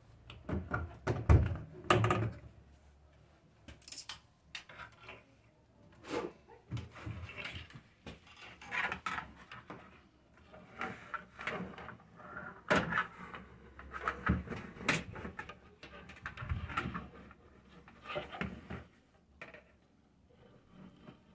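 Irregular knocks, thumps and short rattles of hands working on a washing machine's spin dryer, pulling out clothing jammed inside that has stopped it working.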